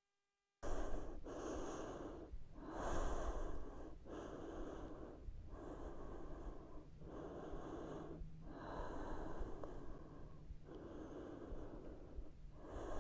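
A woman breathing heavily and audibly, a steady series of long breaths in and out, each lasting one to two seconds, after a brief silent gap at the start. She is winded after strenuous exercise and catching her breath.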